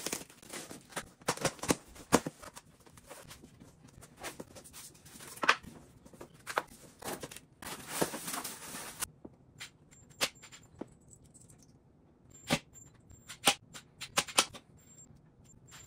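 Flat-pack furniture being unpacked and handled: cardboard and foam packing pulled about with many knocks and scrapes, and a stretch of rustling about eight seconds in. After that come a few separate sharp clacks of wooden panels and parts being set down.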